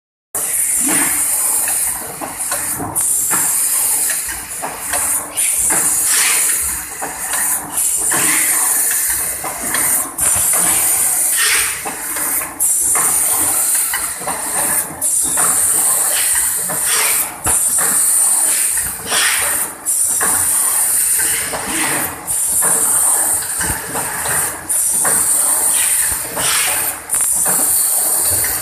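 Automatic standing-pouch packing machine running: continuous mechanical clatter under a steady high hiss, with a short break in the hiss about every two and a half seconds as the machine cycles.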